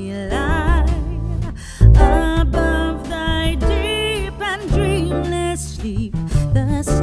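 Background song: a singer's melody with vibrato over guitar and a steady bass.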